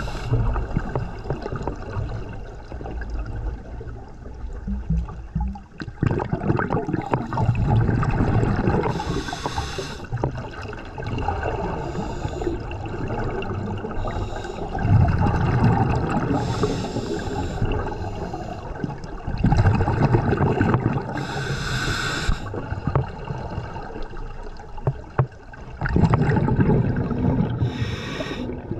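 Scuba diver breathing underwater through a regulator, heard through the camera underwater: hissing inhalations and gurgling rushes of exhaled bubbles, repeating every few seconds.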